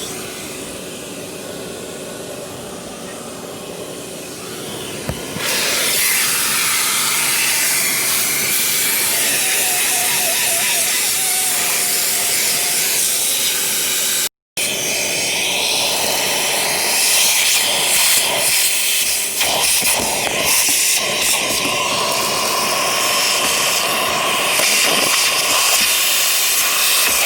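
Vacuum cleaner running with a steady motor whine under a rushing hiss of suction. It gets louder about five seconds in as the nozzle works the car's carpet, with the crackle of grit being sucked up. The sound cuts out for a split second midway.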